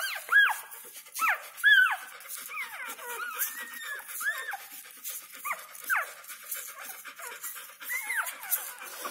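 Newborn puppies squeaking and whimpering: a string of short, high calls that rise and fall in pitch, busiest in the first two seconds and more scattered after.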